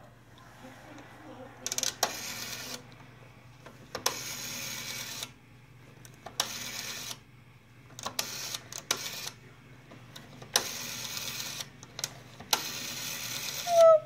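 Rotary dial of a vintage wall telephone being dialed: seven times the dial is wound round and let go, and each spring return runs for about half a second to a second as a fast string of clicks. A steady low hum lies underneath.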